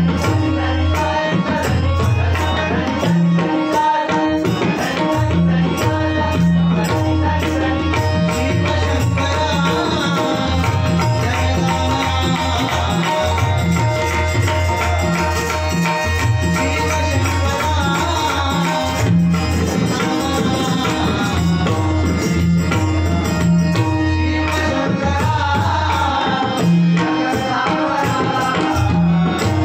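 Live bhajan accompaniment: tabla and pakhavaj playing a steady rhythm under held harmonium tones, with a male voice singing the melody through the middle and again near the end.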